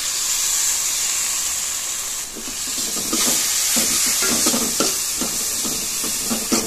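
Onions, garlic and masala frying in oil in a metal pot, sizzling steadily as blended tomato is poured in. From about two seconds in, a steel spoon stirs and scrapes through the mixture in repeated strokes.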